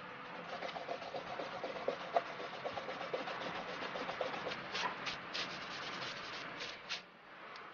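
Steel dip-pen nib scratching across drawing paper while inking line art: many quick short strokes, with several louder, longer strokes in the second half, stopping about seven seconds in.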